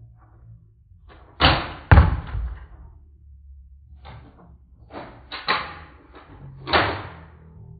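Nerf blasters firing foam darts: about seven sharp shots at uneven intervals, the loudest two close together about a second and a half in.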